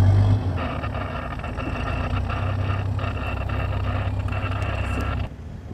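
Amphibious combat vehicle's diesel engine running steadily as it moves through the water: a low drone with a higher whine over it. It cuts off abruptly about five seconds in.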